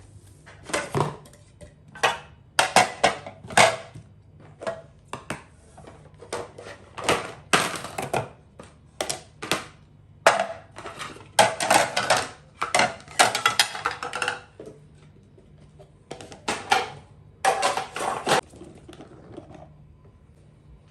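Dishes and kitchenware clattering: an irregular string of clinks and knocks, handled in quick clusters, with a short pause about two-thirds of the way through.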